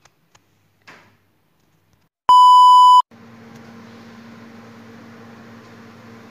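A single loud electronic beep, one steady pure tone lasting under a second that starts and stops abruptly about two seconds in. Right after it a steady low hum sets in.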